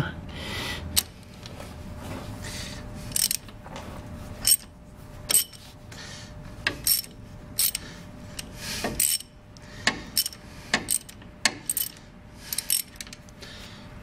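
Metal hand tools clicking and clinking on a cylinder head stud as it is worked loose and unscrewed from a Perkins 203 diesel block: sharp, irregular metallic clicks every half second to a second, some in quick pairs, over light rubbing.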